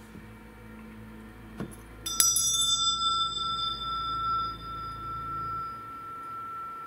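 A small bell struck once about two seconds in, ringing with a clear high tone that slowly fades over about five seconds.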